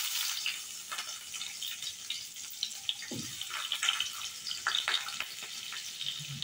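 Cut onions going into hot oil in a karahi: a sudden loud sizzle as they hit, then steady frying with many small crackles.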